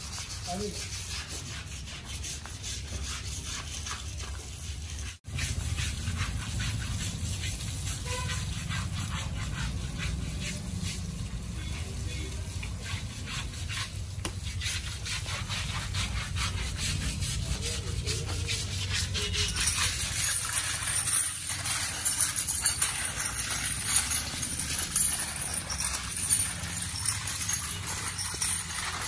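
Scrubbing of a wet elephant's hide, rough rubbing strokes over water running from hoses, growing harsher and louder about twenty seconds in.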